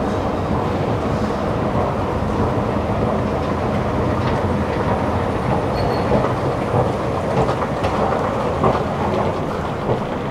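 Escalator running while being ridden up: a steady mechanical rumble and clatter from the moving steps and drive, with a few sharp clicks in the second half as the top is reached.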